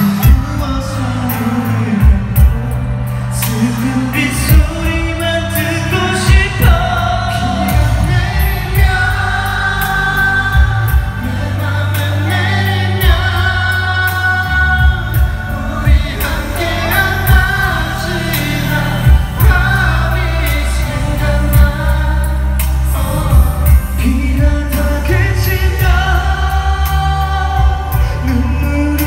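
Male vocalist singing a slow K-pop ballad live into a handheld microphone over an amplified band accompaniment with sustained low bass notes, heard through a concert sound system.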